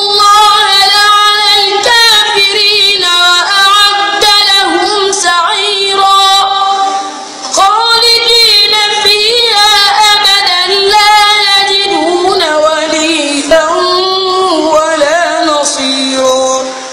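A boy's solo voice reciting the Quran in the melodic murattal style, holding long, wavering ornamented notes on each phrase, with a short breath about seven and a half seconds in.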